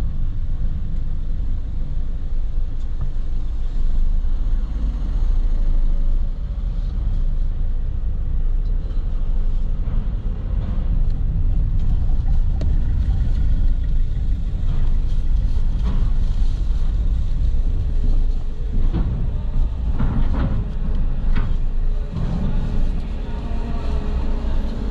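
A car's steady low rumble of engine and road noise, heard from inside the cabin, with a few short knocks and clatters in the second half.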